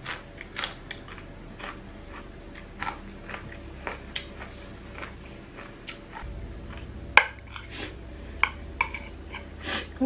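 A person chewing and crunching on seafood papaya salad, with irregular sharp crunches and clicks, several of them louder in the last few seconds.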